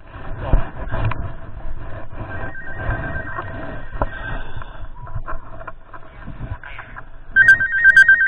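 Mobile phone ringing with an incoming call: a ringtone of two steady high tones sounds for about two seconds a couple of seconds in, then again much louder near the end, over rustling handling noise.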